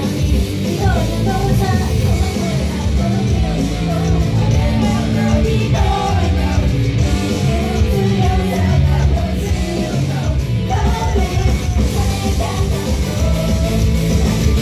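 Idol group's live set: loud rock-style backing track with singing over it, played through a club PA.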